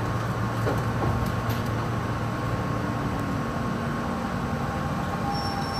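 Meitetsu electric local train running along the track, heard from inside the driver's cab: a steady hum and rumble. A few faint clicks come in the first second or two, and a thin high steady tone starts near the end.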